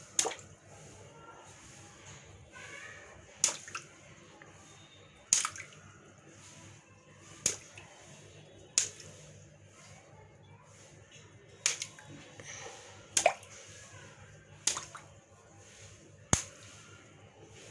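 Small water balloons bursting one after another as a needle pricks them, each a sharp pop followed by a short splash of water onto the floor. There are about nine pops, roughly one to three seconds apart.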